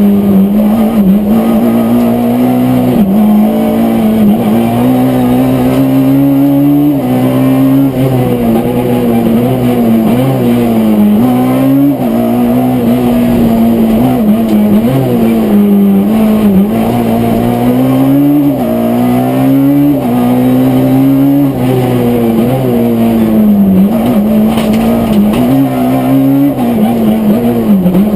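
Rally car engine running hard and loud without a break, its pitch rising and falling with the throttle and jumping at gear changes.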